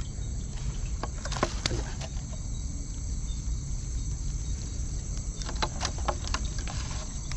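Night insects, crickets among them, chirring steadily over a low rumble. Sharp clicks and rattles come from the wire-mesh fish trap being handled, a couple about a second in and a cluster near six seconds in.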